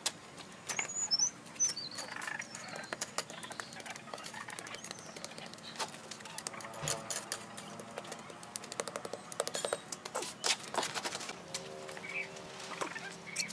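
Steel masonry trowel scraping and tapping as mortar is spread and patted onto a sand dome form, in a run of short irregular clicks and scrapes. A bird chirps briefly about a second in and again near the end.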